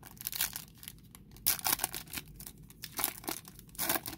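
Foil wrapper of a Topps Flagship Collection baseball card pack being torn open by hand at its crimped seal: a run of short crinkling, tearing crackles, loudest about a second and a half in and again near the end.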